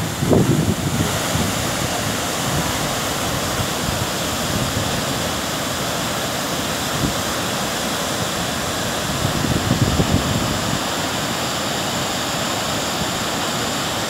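Large waterfall rushing steadily into its plunge pool, a dense, even noise. Wind buffets the microphone with low gusts about a second in and again around ten seconds.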